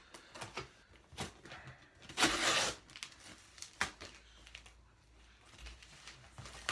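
Cardboard packaging being torn and pulled open by hand, with scattered rustles and clicks; the loudest rip comes about two seconds in and lasts about half a second.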